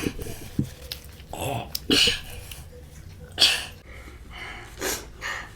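Several short, sharp breaths and sniffs, the sound of people cooling a mouth burning from very chilli-hot food.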